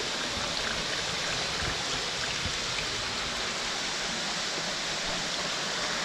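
Steady, even rush of running water from a small waterfall and its stream.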